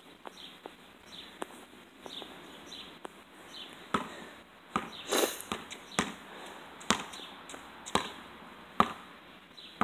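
A basketball being dribbled on a concrete driveway, heard from a distance: a sharp bounce about once a second, starting about four seconds in.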